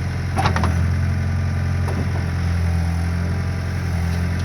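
Skid steer engine running steadily under load, with a short knock about half a second in and another near two seconds.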